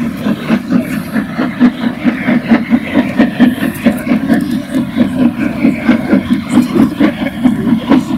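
Steam locomotive working at slow speed, its exhaust beating evenly about three times a second.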